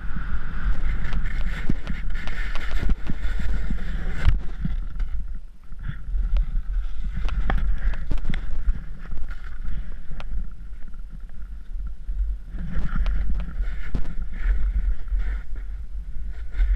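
Snowboard hissing and scraping over snow at speed through trees, with wind buffeting the camera's microphone as a constant low rumble. It eases off briefly about five seconds in, then picks up again.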